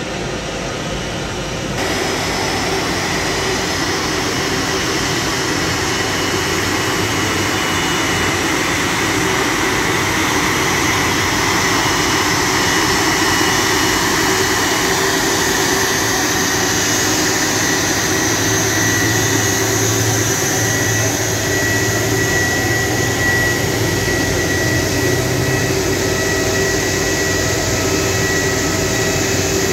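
Airbus A330-300 jet airliner running at idle: a steady jet roar with a thin high whine over it, growing louder about two seconds in.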